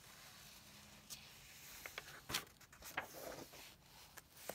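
A picture-book page being turned: a soft paper rustle, then a few sharp taps and crinkles of paper being handled.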